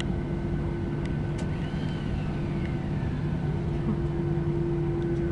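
Steady cabin noise inside a Boeing 737-800 airliner: an even rushing noise with a constant low hum. A faint tone falls in pitch about two seconds in, and there are a few light clicks.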